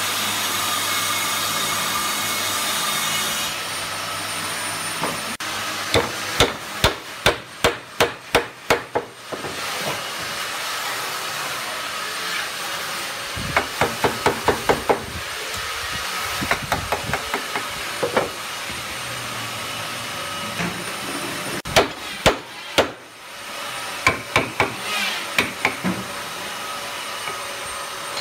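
Wooden mallet driving a chisel into a wooden door frame: runs of sharp knocks, several blows at a time at about three a second, with pauses between runs. A steady hiss underlies it, louder for the first few seconds.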